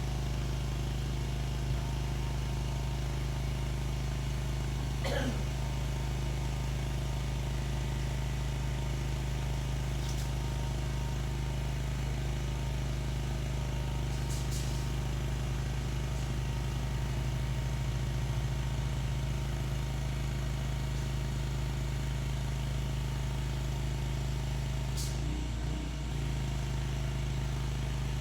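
Pressure washer running steadily, a constant low mechanical drone with an even hiss over it. A few faint, brief clicks occur along the way.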